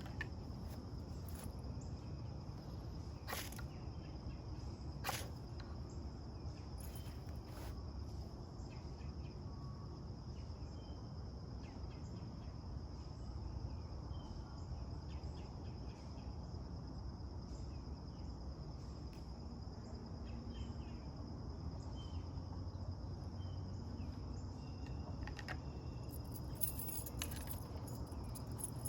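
Crickets chirring in one steady high trill, with two sharp clicks or scrapes about three and five seconds in.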